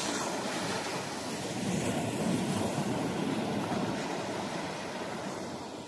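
Small Baltic Sea waves breaking and washing up on a sandy beach: a steady surf noise that swells about two seconds in and eases off toward the end.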